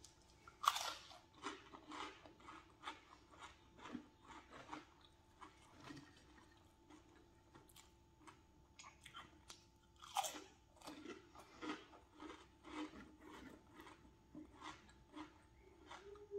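Crispy snack chips being bitten and chewed close to the microphone: a sharp bite just under a second in and another about ten seconds in, each followed by a quick run of crisp crunches as the chips are chewed.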